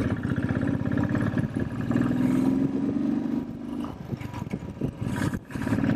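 Motorcycle engine running at a steady, even beat while being ridden, heard from the bike. The engine note eases off after about three and a half seconds.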